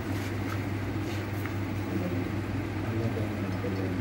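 A steady low machine hum, with a few faint ticks about a second in.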